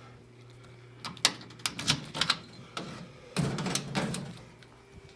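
A run of sharp clicks and knocks, starting about a second in, with a louder clatter around three and a half seconds in, over a faint low steady hum.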